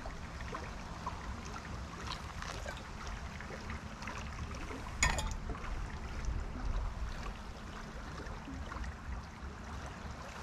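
Flowing river water and a low rumble of wind on the microphone. About five seconds in comes a single sharp metallic clink as a stainless steel pot is set down on a camp stove.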